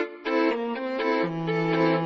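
Instrumental background music: a melody of short notes over a lower held note that comes in about a second in.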